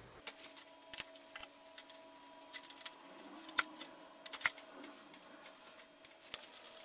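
Irregular metallic clicks and knocks as a block of tool steel is handled, seated and clamped in a lathe's quick-change tool post, over a faint steady hum.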